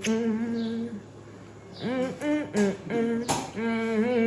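A voice singing, holding steady notes with a short break about a second in.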